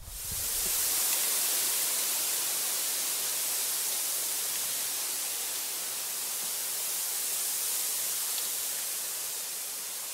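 A steady, even hiss, strongest in the treble, that swells up within the first second and then holds.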